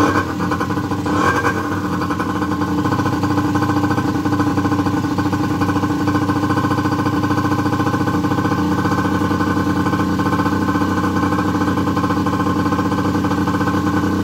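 Two-stroke ATV engine running steadily, freshly repaired, with its carburettor air mixture not yet adjusted.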